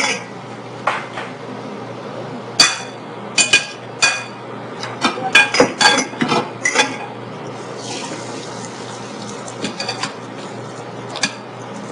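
Metal utensils clinking and scraping against dishes and bowls during cooking: a dozen or so irregular, sharp clinks with a brief ring, bunched in the middle, and a short stretch of soft rushing noise about two-thirds of the way through.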